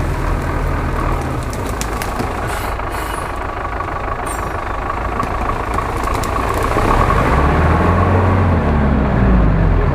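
GAZ-66 off-road truck's engine running as it pushes through tall reeds, with a steady high whine over it. A few crackles come about three seconds in, and from about seven seconds in the engine revs up and down and grows louder.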